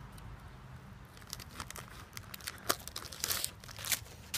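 Heavy plastic bait bag of Yum Dinger soft plastics crinkling and crackling as it is pulled and twisted without tearing open. Scattered crackles start about a second in and grow louder and sharper near the end.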